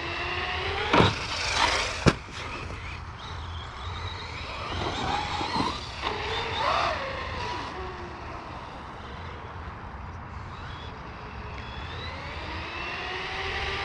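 Losi Lasernut RC truck's brushless electric motor whining up and down in pitch as the throttle is worked. There is a sharp knock about two seconds in.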